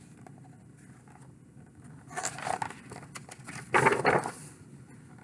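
A page of a hardcover picture book being turned by hand: two bursts of paper rustling, about two seconds in and again near four seconds, with a few light taps between.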